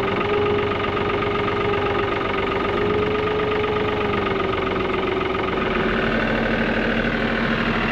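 Tractor engine running steadily, its note changing about six seconds in.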